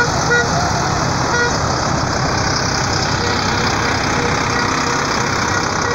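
Diesel engines of large farm tractors running steadily as they roll past close by. Two short beeps sound about a second apart near the start.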